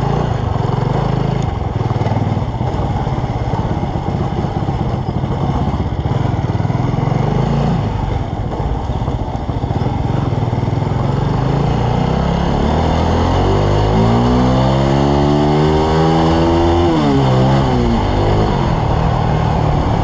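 Motorcycle engine running under way, heard from the bike itself. About two-thirds of the way through, its pitch climbs steadily for several seconds as it accelerates, then drops back.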